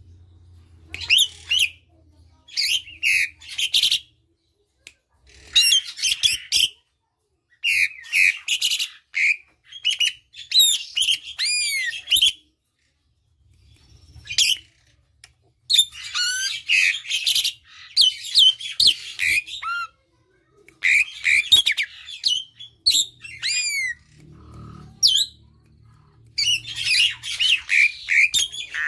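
Asian pied starling (jalak suren) singing in repeated phrases of rapid chattering and whistled, gliding notes, with short pauses of a second or two between phrases.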